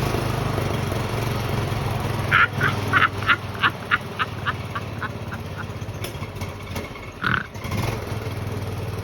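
A small engine runs steadily. About two seconds in, a duck gives a series of about a dozen quacks, roughly three a second, that fade away. A single call follows near the end.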